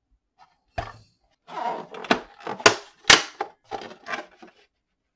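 Plastic instrument cluster of a 2003 Chevrolet pickup handled on a workbench: several sharp clacks and knocks with rubbing and rustling between them. The loudest knocks come about two and three seconds in.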